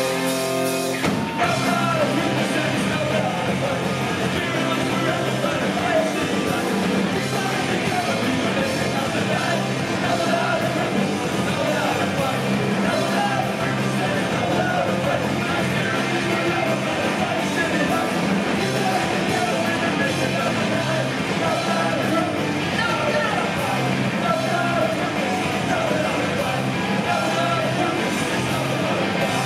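Punk rock band playing live: electric guitars, bass and drums, with a singer on the microphone. The full band comes in about a second in after a held chord and plays on without a break.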